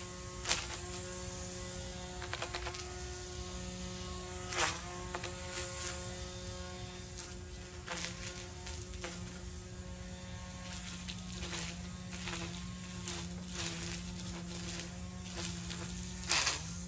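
Hart 40V cordless string trimmer running steadily with an electric-motor hum, with occasional sharp snaps as it cuts. The motor's pitch dips briefly at each snap.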